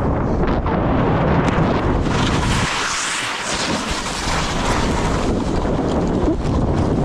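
Wind buffeting the microphone of a skier's point-of-view camera, mixed with skis hissing and scraping over packed snow during a downhill run. The low rumble eases for about a second, a little under three seconds in.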